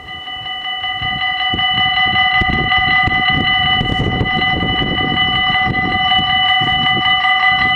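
Level-crossing warning bells ringing rapidly and without a break as the crossing activates and the half barriers come down, with an irregular low rumbling noise underneath.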